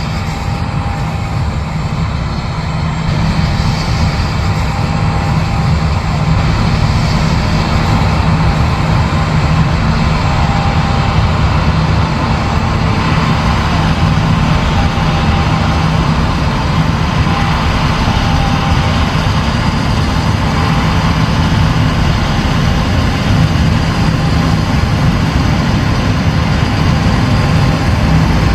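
Heavy diesel farm machinery running steadily at harvest: a continuous low engine drone with a faint steady whine above it.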